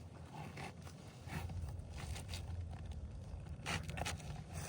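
Asphalt shingle scraping and rustling in short, irregular strokes as it is pushed up under the shingle course above, with the strokes thickest near the end. It is not sliding freely because it is snagging on a hidden roofing nail.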